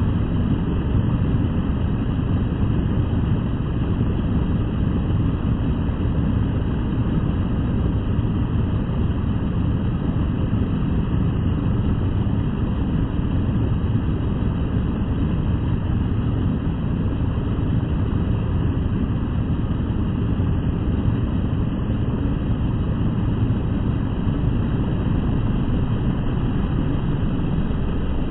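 Four-stroke walk-behind rotary lawn mower engine running steadily with its blade spinning. The crankshaft is bent from hitting a mailbox post, and with a new blade fitted the mower still runs with a little vibration.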